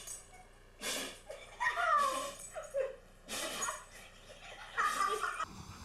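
A dog sneezing twice, two short sharp bursts about a second and three and a half seconds in, with high gliding vocal sounds between the sneezes.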